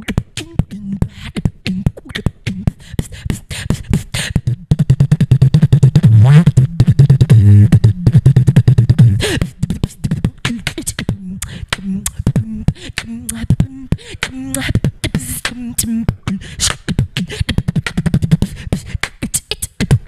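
A female beatboxer performing close into a handheld microphone: fast vocal drum strokes over a hummed bass line. The loudest stretch, with heavy bass, comes about five to nine seconds in. After it come lighter, quicker clicks, with a short bass melody stepping up in pitch.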